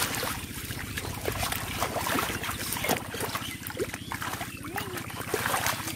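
Hands splashing and sloshing in shallow muddy water as fish are grabbed, in many short irregular splashes, over a steady low rumble.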